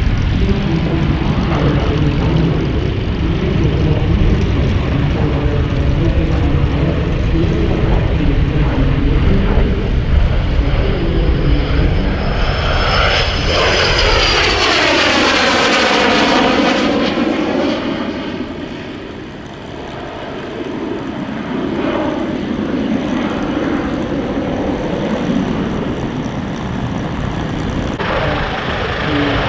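Cessna A-37B Dragonfly's twin General Electric J85 turbojets on a display pass. A loud, steady rumble gives way about halfway through to a high whine that sweeps down in pitch as the jet goes by. The sound then thins and dips before building again as it comes round.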